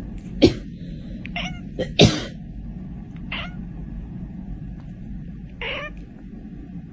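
A person coughing and a domestic cat answering with short, raspy cough-like meows. There are about five separate sounds, the loudest about two seconds in.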